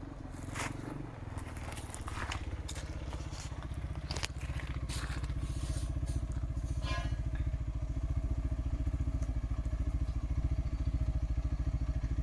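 UTV engine running at low speed, a steady rapid pulsing that grows gradually louder as the machine approaches. Scattered sharp clicks and crackles sound in the first few seconds.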